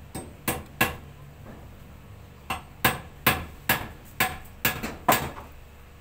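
About ten sharp, hammer-like knocks: two close together under a second in, then a quicker run of eight about 0.4 s apart. Under them runs the low steady hum of a Daikin split air conditioner's outdoor unit.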